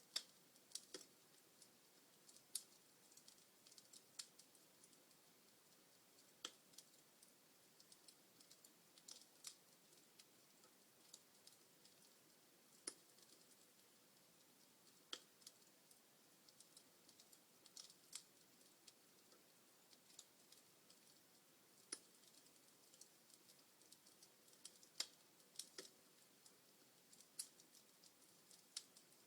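Wood fire crackling in a fireplace: faint steady hiss of burning logs with irregular sharp pops and snaps, a few louder ones scattered throughout.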